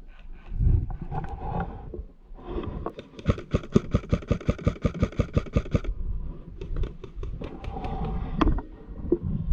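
Airsoft rifle firing a rapid string of shots, about seven a second, for nearly three seconds, followed by a few scattered shots, over rustling movement.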